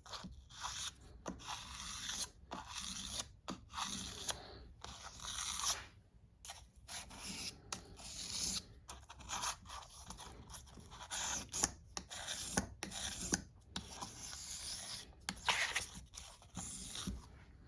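Sandpaper rubbed by hand on a pocket knife: a run of short rasping strokes with brief pauses between them.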